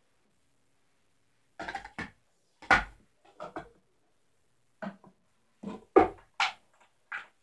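Plastic sport-stacking cups knocking against each other and on wood as they are picked up and set down: a scattered series of short knocks, several close together around the middle.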